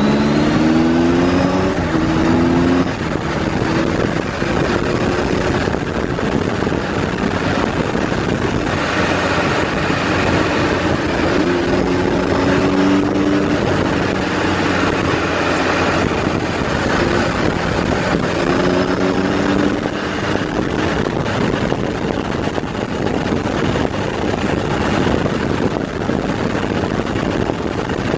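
Kawasaki air-cooled Z1000's inline-four engine running while the bike is ridden, under heavy wind rush on the handlebar-mounted microphone. The engine note climbs in pitch in a few short stretches of acceleration: near the start, about halfway and again about two-thirds of the way in.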